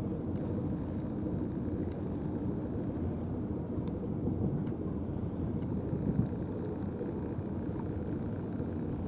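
Steady low rumbling background noise with no distinct events, only a few faint ticks.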